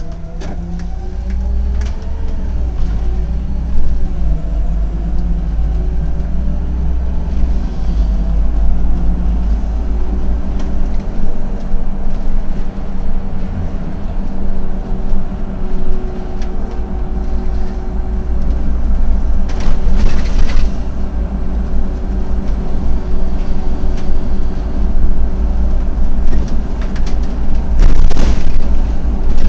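Autosan M12LF CNG city bus heard from the driver's cab while driving: a loud low engine and road rumble, with whining tones that glide up and down over the first few seconds before settling into a steady hum. Two brief hisses stand out, about two-thirds of the way through and again near the end.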